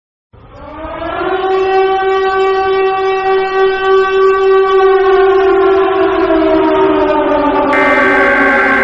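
Civil defense warning siren winding up from silence to a steady, loud wail, then slowly winding down in pitch. Near the end a second, higher steady tone joins for about a second.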